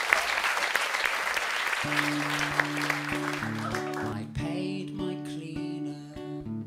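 Audience applauding at the end of a live song, fading out as music with held notes starts about two seconds in.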